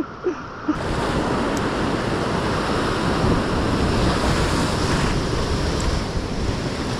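Rough surf washing and breaking against a rocky shore, a steady loud rush with no let-up, with wind buffeting the microphone.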